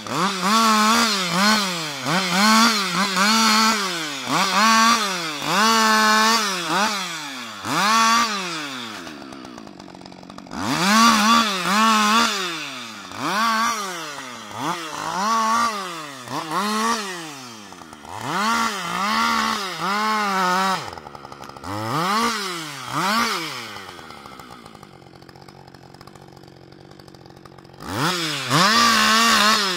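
Husqvarna 560 XP 60 cc two-stroke chainsaw revved in quick repeated bursts, about one a second, as branches are cut off a fallen trunk. It eases back to idle briefly about a third of the way in and for a few seconds near the end, then revs hard again just before the end.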